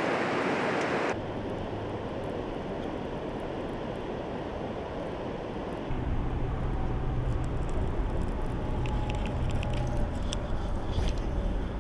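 Outdoor riverbank ambience: a steady hiss that drops about a second in, then a low rumble from about six seconds in, with a few faint clicks near the end as a baitcasting reel is handled.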